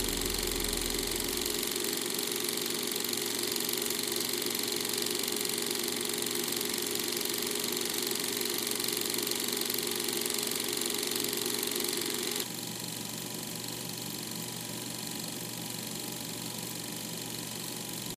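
Steady ambient drone of a film score: an even hiss with several held low and high tones. The deep bass fades out about a second and a half in; about twelve seconds in the drone steps down to a quieter, thinner layer, which then cuts off abruptly.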